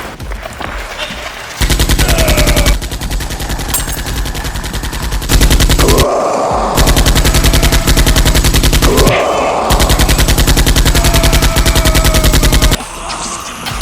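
Rapid automatic-gunfire sound effects in four long bursts, each a fast, even stream of shots, with short breaks between them; the burst in the middle is the longest.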